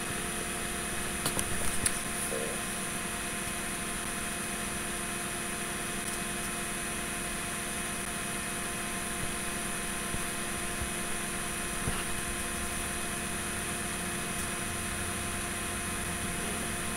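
Steady room tone: an even electrical hum and hiss with several faint steady tones, and a few light clicks about a second and a half in.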